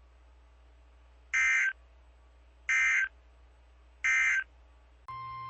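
Three short screeching digital data bursts about 1.4 s apart: the EAS end-of-message (SAME) tones that close an emergency alert broadcast. A steady electronic alert tone starts near the end.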